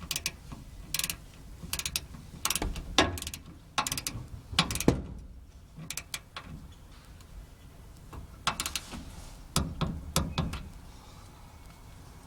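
Ratcheting torque wrench clicking in short, irregular strokes as a brake caliper bolt is tightened to 33 foot-pounds.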